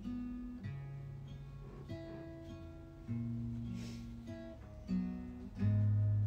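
Guitar and bass guitar playing slow, sustained chords that change every second or two. Near the end a louder chord is struck and left ringing out.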